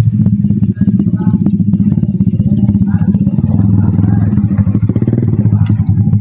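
Motorcycle engine running steadily at low revs as the bike rolls down a slope carrying a load of oil palm fruit bunches.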